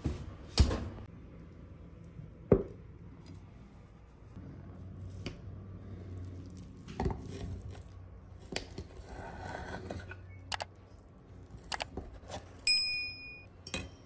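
Kitchen utensils knocking and clicking on dishes, a few scattered hits, with one ringing clink of tableware near the end.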